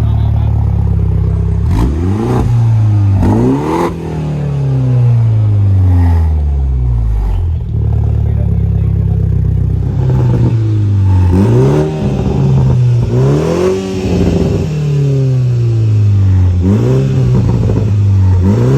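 Car engine being driven hard, its revs climbing and falling again and again as it accelerates, shifts and slows.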